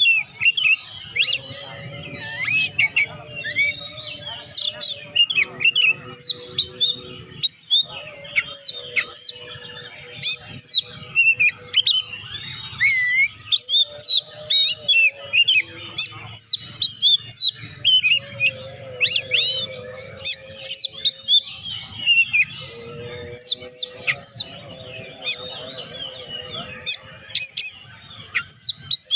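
Oriental magpie-robin (kacer) singing vigorously: a fast, continuous run of varied whistles, quick chirps and harsh squawking notes with hardly a pause.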